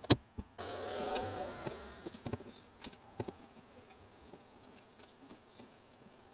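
A sharp knock just after the start, then the rustle of a duvet and pillows being pushed and smoothed across a car's back seat, with a few light knocks and clicks as the bedding is arranged.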